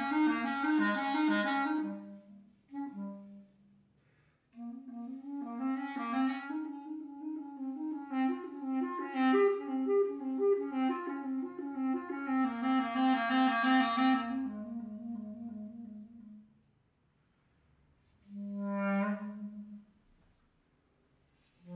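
A solo wind instrument playing melodic phrases with short pauses between them. The last is a single held note after a brief silence, about three-quarters of the way through.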